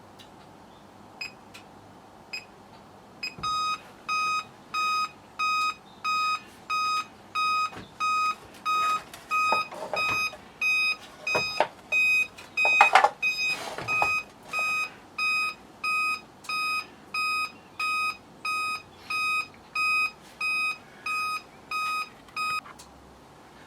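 Scantronic 9100 intruder alarm panel's buzzer beeping steadily, about two short beeps a second, starting a few seconds in and stopping shortly before the end. A few louder knocks and rustles fall among the beeps around the middle.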